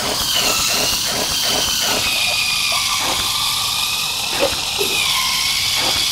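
A small Lego Technic electric motor whirring through its gear train as the walker's legs push through water beads, with quick clicking of about five a second that thins out into scattered clicks after a couple of seconds.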